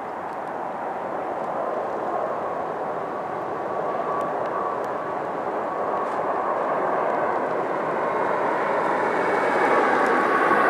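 Engines of a Boeing 757-200 jet on landing approach with its gear down, a steady jet roar that grows louder as the aircraft nears, with a faint whine through it.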